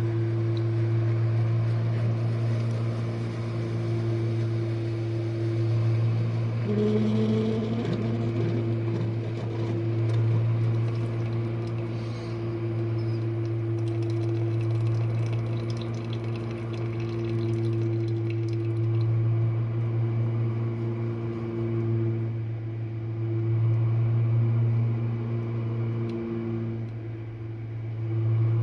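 Jenn-Air dishwasher running its main wash: a steady low motor hum with water spraying inside, the level swelling and easing every few seconds. A brief higher tone about seven seconds in.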